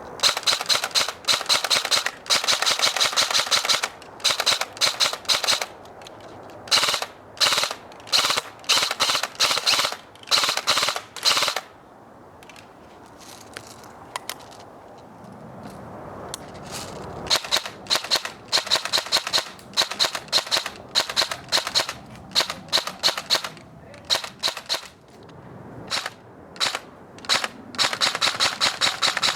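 Airsoft electric gun firing on full auto in bursts. A long burst of a few seconds comes at the start, then many short bursts, a quieter lull about midway, and more bursts toward the end.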